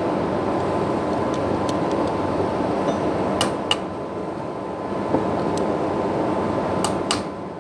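Steady machine hum in the background, with a few light metallic clicks from the parts of a pneumatic sander being taken apart by hand.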